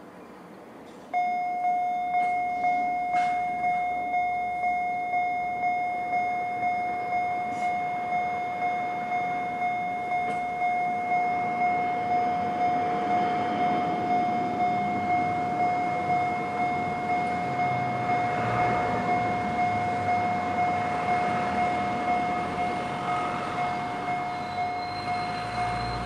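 Japanese level-crossing electronic warning bell in the JR standard tone, starting about a second in and sounding a steady, rapid series of single-pitch dings, each with a long ringing decay. The lower note of the usual two-note pattern drops out, so only one pitch repeats. A low rumble rises near the end.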